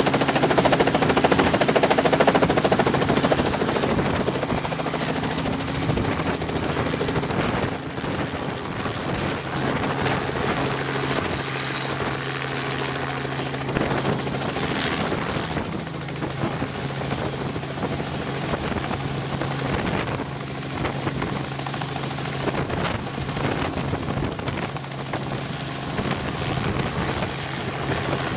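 Robinson R44 helicopter running at close range, its piston engine humming steadily under the fast, even chop of the main rotor as it lifts off the pad. The sound is loudest in the first few seconds.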